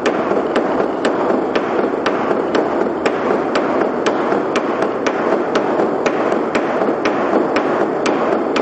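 Large Chinese drums played together in a dense, continuous roll, with a sharp click about twice a second keeping time.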